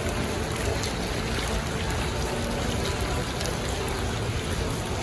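Fountain's small water jets splashing steadily into a shallow pool.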